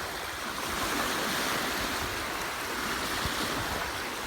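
Waves washing on a shore, a steady rushing surf sound that swells gently, with some wind on the microphone.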